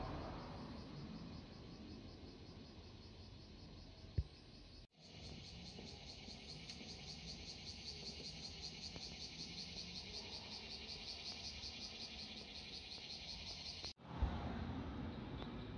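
Outdoor garden ambience in which a chorus of insects chirps in a steady, fast pulse for most of the stretch, starting abruptly about five seconds in and cutting off abruptly about fourteen seconds in. There is a single short knock about four seconds in.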